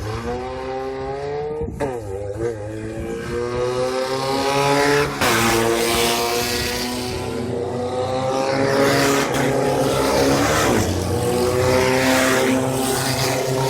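Off-road race car engine accelerating hard through the gears. Its pitch climbs steadily and drops sharply at each upshift, three times: about two, five and eleven seconds in.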